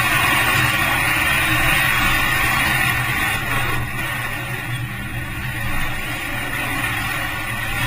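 Renault Megane RS 265's 2.0-litre turbocharged four-cylinder running hard on a race track, heard from a camera mounted outside the car. The sound eases and gets quieter about three and a half seconds in as the car goes into a corner.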